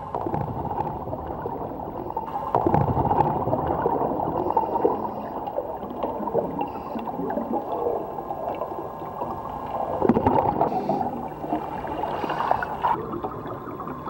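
Muffled underwater gurgling and bubbling water noise, dull with little high sound, swelling louder about two and a half seconds in and again near ten seconds.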